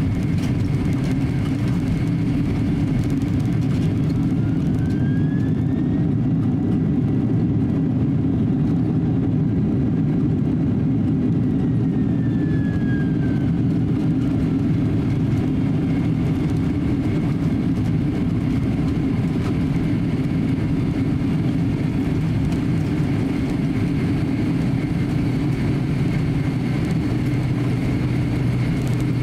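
Cabin noise inside a Boeing 767-300 taxiing: a steady low rumble from the jet engines at idle and the rolling of the airliner. A faint whine rises in pitch a few seconds in, holds, then falls away about halfway through, and a low hum sets in near the end.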